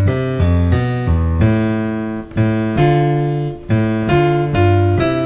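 Piano played as a series of struck chords, each with a new bass note, stepping through a circle-of-fifths chord progression.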